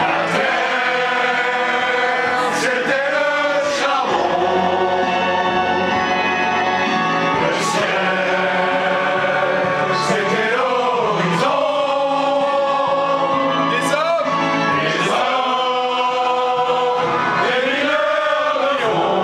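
A group of men singing loudly together in chorus, holding long notes and sliding between them.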